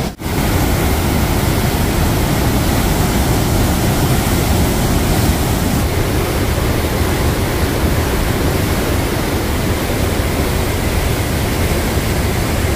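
The Rhine Falls in heavy flow: a loud, steady rush of falling water.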